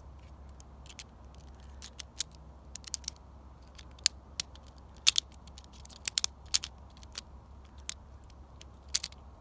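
A plastic Bakugan toy's hinged parts clicking and snapping as it is folded by hand into its ball shape: irregular sharp clicks, the loudest bunched about five to six seconds in.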